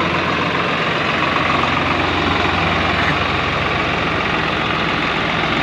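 Swaraj 744 XT tractor's three-cylinder diesel engine running steadily while the tractor pulls a fully loaded trolley. The load is heavy enough that the front wheels are lifted off the ground.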